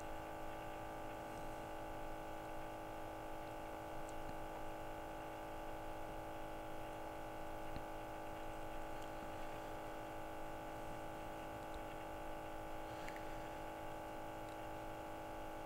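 Steady hum of the Trak-It IIIa gas detector's built-in sample pump running, with several fixed tones held throughout, as it draws in clean air to clear its sensors after calibration. A few faint ticks.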